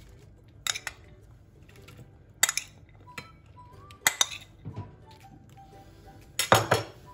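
A metal spoon clinks and scrapes against ceramic dishes while cooked chicken mince is spooned onto a plate of crispy fried tortilla pieces. There are separate clinks about a second in, at about two and a half seconds and at about four seconds, then a louder clatter near the end.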